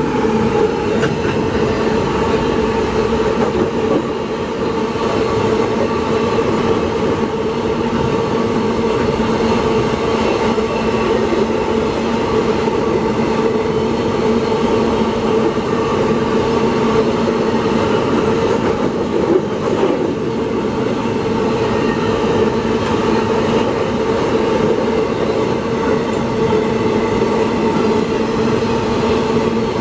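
A long train of empty iron-ore wagons rolling fast past, a steady loud rumble of wheels on rail with a continuous ringing tone over it.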